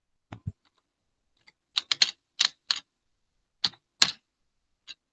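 Computer keyboard keys being typed: about ten irregular sharp clicks, bunched in quick groups in the middle and a loud pair near the end, with a couple of duller taps at the start.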